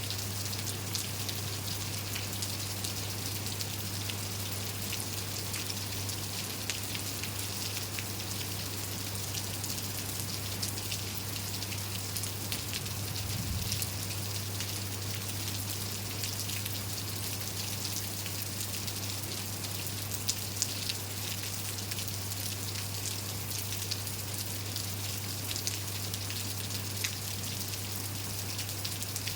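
Steady rain falling, with many individual drops ticking and pattering on surfaces, over a steady low hum.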